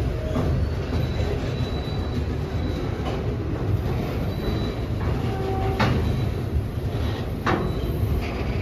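Train rolling along the track: a steady low rumble with a few sharp clacks of wheels over rail joints and faint, brief wheel squeal.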